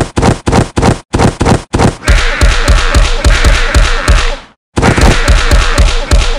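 Cartoon fight sound effects: a string of punch and kick impacts, about three sharp hits a second, turning about two seconds in into a fast, unbroken flurry of blows that stops briefly and then resumes.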